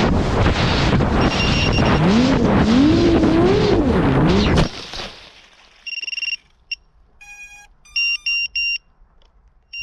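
Diatone Roma L5 5-inch FPV quadcopter's motors running under wind noise, their whine swinging up and down in pitch with the throttle. The sound cuts off suddenly about halfway through, followed by a few short, high electronic beeps with near silence between them.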